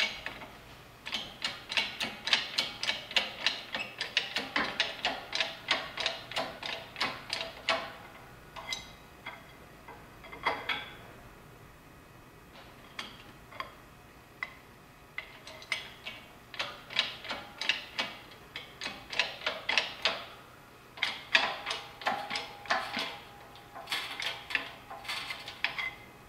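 Hydraulic shop press being pumped by hand to press a planetary bearing fully home: quick mechanical clicks, about three a second, in two long runs with a sparser stretch between.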